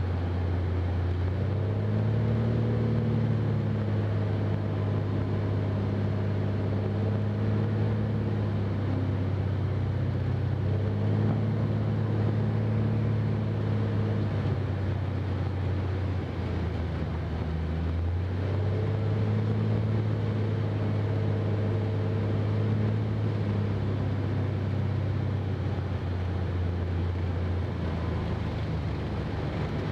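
Cessna R172K Hawk XP's six-cylinder Continental engine and propeller droning inside the cabin on landing approach, the pitch stepping up and down several times as power is changed. The upper tones fade in the last several seconds as the power comes back for the landing.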